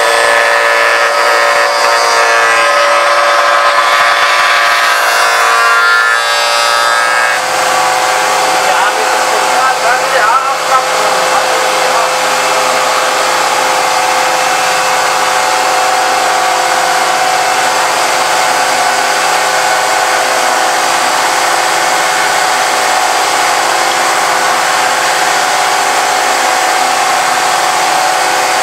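Spindle moulder running at speed while oak stock is fed past its cutter, a loud steady machine whine. About seven seconds in it changes from a steady whine of many tones to a rougher, hissier sound that then holds steady.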